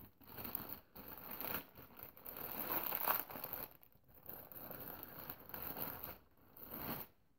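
Clear plastic bag crinkling and rustling as it is handled and pulled open to free a small plush toy, in irregular spells with short pauses.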